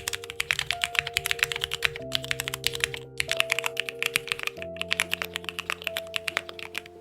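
Fast typing on a Luminkey 65 mechanical keyboard with Cherry MX Nixie switches, a quick run of key clacks broken by brief pauses about two, three and four and a half seconds in. The switches are called scratchy.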